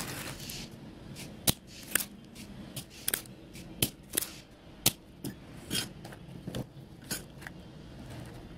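Irregular sharp clicks and light scraping, about a dozen in all, from tools and hands working on a speaker amplifier circuit board while leftover solder is cleaned from the pads of a removed IC.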